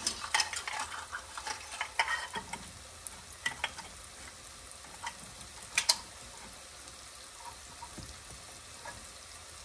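Diced apples sizzling gently in melted butter in a frying pan on medium heat. Scattered light clicks and knocks come in the first few seconds, with one sharper knock about six seconds in.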